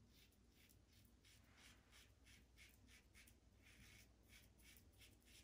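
Faint, quick scraping strokes of a stainless steel safety razor with a Gillette Nacet blade cutting through lathered stubble, about three strokes a second.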